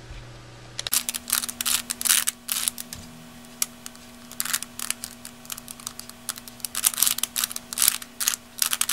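Plastic layers of a 3x3x2 Rubik's Domino barrel puzzle clicking and clacking as they are turned by hand, in irregular runs of quick clicks starting about a second in.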